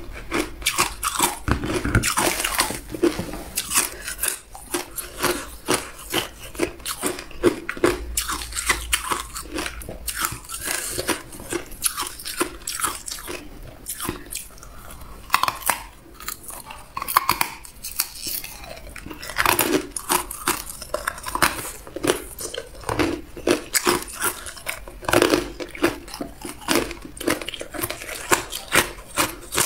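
A ball of hard ice bitten and chewed, giving a dense run of sharp, irregular crunches and cracks.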